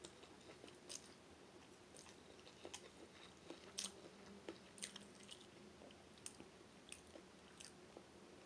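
Faint mouth sounds of eating pancit bihon rice noodles: chewing with scattered short wet clicks and smacks, the loudest a little under four seconds in.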